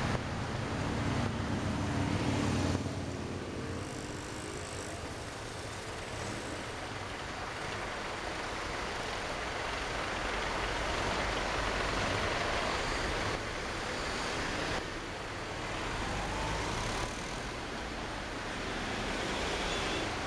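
Car cabin and traffic noise from a car in slow, heavy traffic: a steady rush of engine and road noise, with a low engine drone in the first few seconds.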